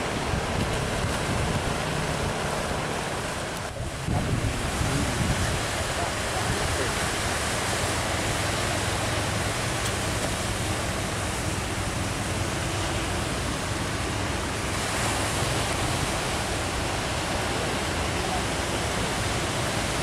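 Ocean surf breaking and washing in, with wind buffeting the microphone: a steady rushing noise that dips briefly about four seconds in.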